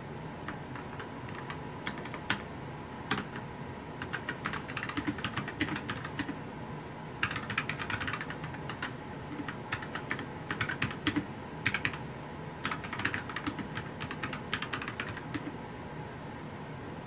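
Typing on a compact backlit computer keyboard: keys clacking in quick, uneven runs with short pauses, over a steady background hiss. The typing stops a second or two before the end.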